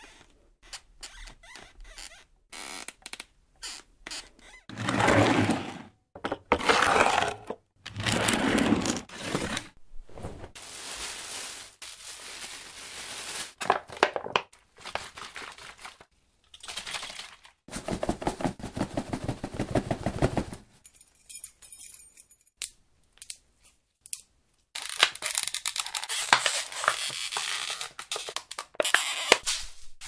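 A string of separate everyday foley sound effects played one after another with short gaps, such as scrapes, knocks and rustles. About two thirds of the way through comes a fast, even rattle lasting a few seconds.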